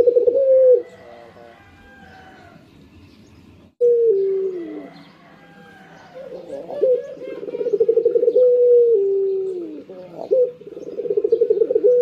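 Barbary dove (ringneck dove, 'puter') cooing: about four rolling, trilled coos, each ending in a long note that slides down in pitch. Fainter high chirps sound between the coos.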